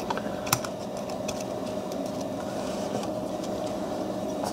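A few sharp clicks and taps of a small pick tool against the small parts and frame of a Browning Buck Mark pistol as a trigger-spring leg is worked into place, the sharpest about half a second in. A steady hum underlies them.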